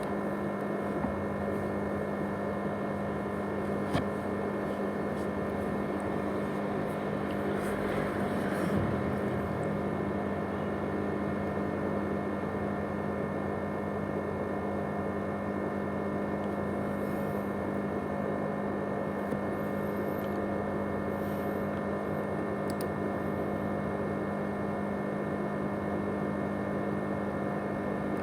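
Steady machine whir and hum from an ASUS X543UA laptop with a 500GB USB hard drive running, several steady tones over a hiss, the noise likened to a jet engine. A few faint clicks sit on top.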